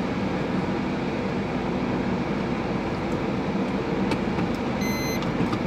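Car engine idling with the air conditioning running, a steady drone heard from inside the cabin; the owner blames the car's noise on a failing AC compressor.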